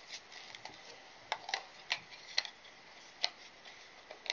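Several light, sharp clicks and taps at uneven intervals, from a plastic ink pad and a paintbrush being handled and set down on a work table.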